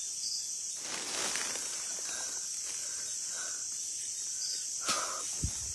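Crickets and other night insects trilling steadily. Faint rustling, footstep-like sounds come about a second in, and a sharp click and a low thud near the end; the listeners take these for the sound of someone walking.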